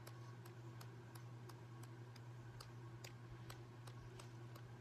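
Faint, steady ticking, about two to three ticks a second, over a low steady hum.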